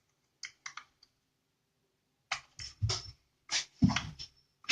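A tool clicking and scraping at the plastic housing of an LED bulb as its screw base is worked loose: a couple of light clicks, a pause, then a run of short scrapes and cracks in the second half.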